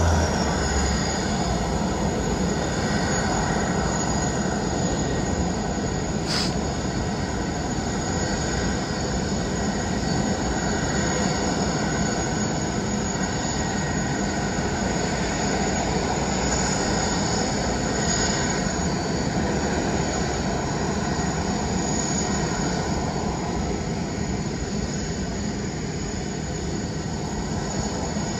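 Jet airliner engines running, a steady roar with high whining tones, easing off a little near the end. A single sharp click about six seconds in.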